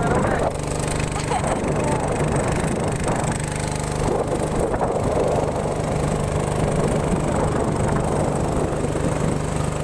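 A small boat's motor running at a steady speed with a constant low hum, along with the rush of water from the wake along the hull.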